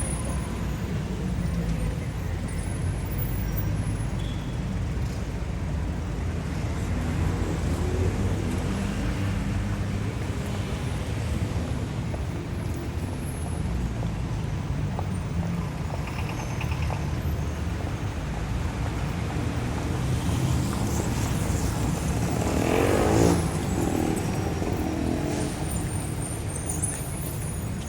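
City street traffic: a continuous low rumble of car and bus engines and tyres. About three quarters of the way through, one vehicle passes close by, louder and brighter for a second or two.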